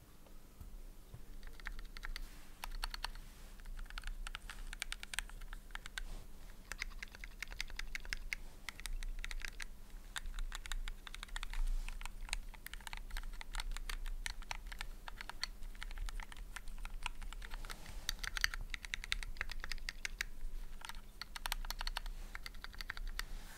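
Typing on a Keychron Q0 mechanical numpad fitted with factory pre-lubed Gateron G Pro Red linear switches: an irregular, continuous run of keystroke clacks.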